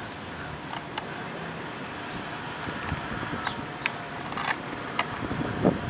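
A few sharp plastic clicks and rustles as a LiPo battery pack and its wiring are handled and seated in an RC racing boat's hull, over a steady background rumble and hiss.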